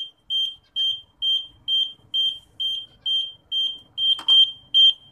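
Arduino parking sensor's piezo buzzer beeping in short, even, high-pitched beeps at about two a second: the too-close warning, set off because the model vehicle is right up against the ultrasonic sensor. A short knock sounds once about four seconds in.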